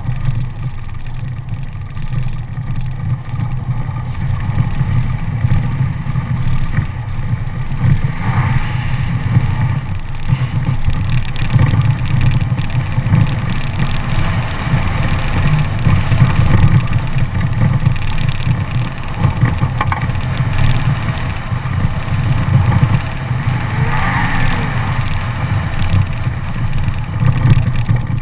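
Toyota Tacoma pickup driving over a desert dirt track, heard from a camera mounted on the outside of the truck: a steady, fluctuating low rumble of engine, tyres on gravel and wind across the microphone.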